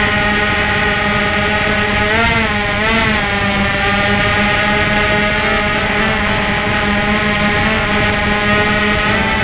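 DJI Phantom 2 quadcopter's electric motors and propellers buzzing steadily while it hovers, heard close up from the camera mounted on the drone. The pitch wobbles briefly about two and three seconds in as the motors adjust speed.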